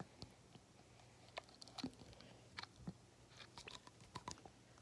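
Faint, irregular wet clicks and squelches of jiggly, water-like slime being squeezed and handled.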